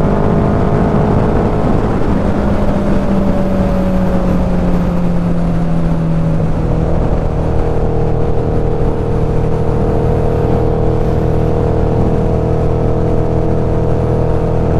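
Suzuki Hayabusa's inline-four engine running under way at highway speed, with low wind rush over the microphone. The engine note falls slowly a couple of seconds in, then holds steady.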